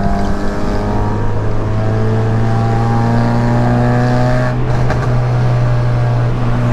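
Honda Civic with a straight-through exhaust, its engine droning loudly under load at cruising speed, pitch creeping slowly upward. The exhaust note is deep and steady.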